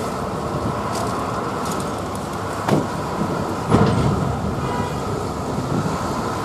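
Diesel engine of a large coach bus running as it drives slowly off a ferry, over a steady background of traffic noise. Two sharp knocks come a little over a second apart near the middle.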